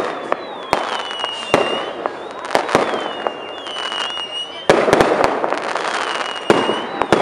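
Fireworks going off: repeated sharp bangs of bursting shells over a steady crackle, with several whistles that glide down in pitch, each lasting about a second.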